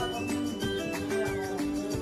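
Background music: steady instrumental notes, with no speech.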